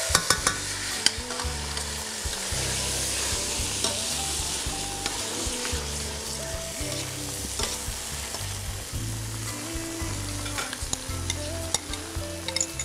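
Chicken breasts sizzling as they sear in a frying pan, while a spoon stirs tomato sauce in a steel saucepan. A few sharp clinks of utensil on metal come in the first second.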